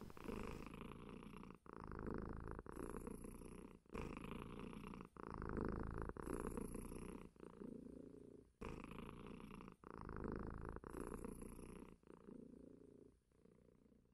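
Domestic cat purring close up, in a steady rhythm of breaths each about a second long, fading out near the end.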